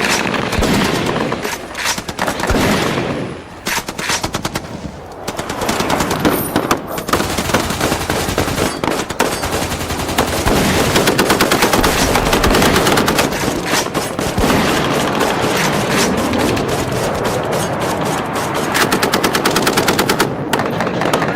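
Rapid automatic fire: long strings of shots in quick succession, dropping to a brief lull about four seconds in, then picking up again and running dense.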